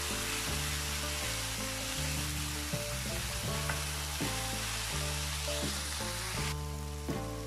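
Shredded potato, bottle gourd and green beans sizzling in oil in a wok while being stirred and turned with a wooden spatula. The sizzle thins out near the end. Soft background music plays underneath.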